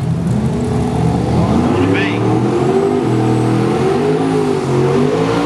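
Fox-body Ford Mustang drag car doing a burnout in the water box: the engine revs up and down repeatedly, loud, while the rear tyres spin and smoke.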